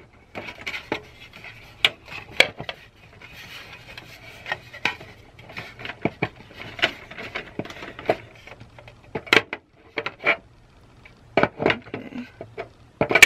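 Hard plastic trays of a Stampin' Up Color Caddy rubbing and clicking against each other as the top tray is turned and pressed down to seat on the notches of the tray below. A run of scrapes and sharp clicks, the loudest near the end as the tray locks in place.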